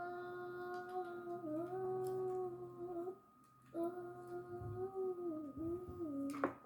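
A person humming a wordless tune in long held notes with small pitch slides, breaking off briefly about three seconds in. A sharp click near the end.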